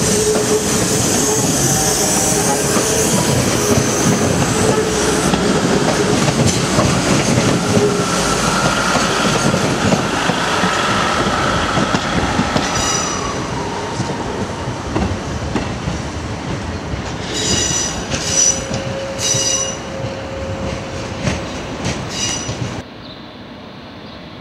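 Class 314 electric multiple unit running slowly through the station throat, its wheels clattering over the rail joints and pointwork. In the second half its wheels squeal high-pitched several times in short bursts on the curves, and near the end the sound drops suddenly to a quieter background.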